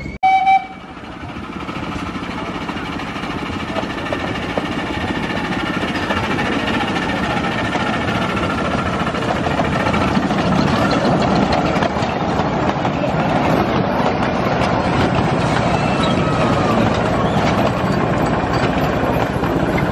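A 7¼-inch gauge miniature steam locomotive and its passenger train: a short loud whistle blast, then the train's running noise builds as it approaches and stays strong and steady as the locomotive and carriages pass close by.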